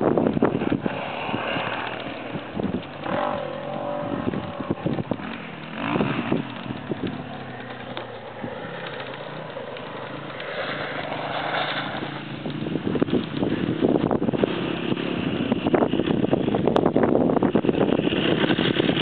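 Dirt bike engine revving up and down as it rides a steep dirt hill, its pitch rising and falling and getting louder in the second half.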